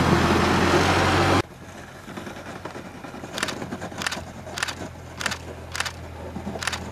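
ATV running, loud and dense for about a second and a half, then cutting abruptly to a quieter steady engine hum. Over the hum come about six short, sharp high-pitched sounds, spaced roughly half a second to a second apart.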